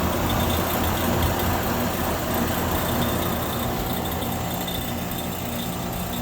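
Goodman 5-ton heat pump outdoor unit running with a steady hum and a rattling, clicking noise that the owner believes comes from the compressor, not the fan.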